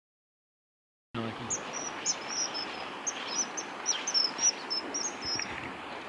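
Common kingfishers giving a rapid series of short, high, sharp whistled calls over a steady rush of flowing river water. The sound cuts in abruptly about a second in.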